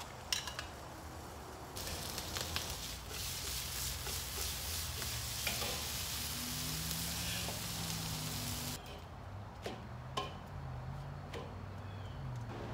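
Sliced onions and jalapeños sizzling in a skillet on a charcoal kettle grill, with the clicks of metal tongs against the pan as they are stirred. The sizzling cuts off sharply about two-thirds of the way through, leaving a few clicks.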